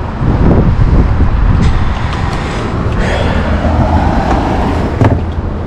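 Steady low motor-vehicle rumble, with a few light knocks as hand tools and a plastic trim piece are set down in a car boot.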